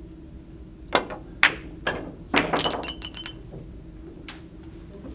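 Billiard balls on a pin-billiards table clicking: three sharp knocks about half a second apart, then a quick rattle of hard clicks with a ringing note, and a single click near the end.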